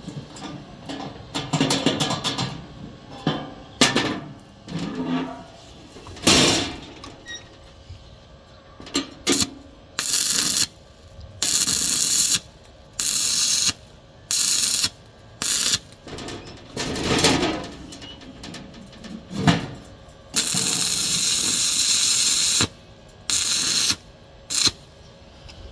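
Electric arc welding on a steel box: a run of short welding bursts, each a steady hiss that starts and stops abruptly, the longest about two seconds. They follow irregular knocks and clatter of steel being handled.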